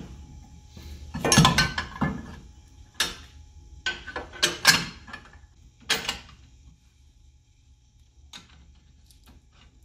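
Steel shock extender bracket and its bolts clinking and knocking against the rear axle's shock mount as they are fitted by hand: a cluster of sharp metal clinks about a second and a half in, several more between three and six seconds, then fainter ticks near the end.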